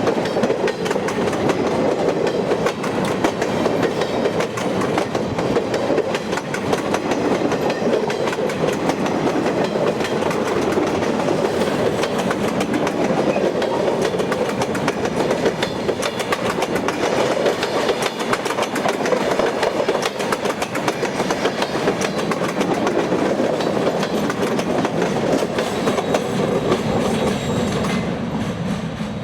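Portland & Western log freight train rolling past, its cars' wheels clicking steadily over the rail joints with a continuous rumble and squeal-free rolling noise. The sound begins to thin out near the end as the train moves away.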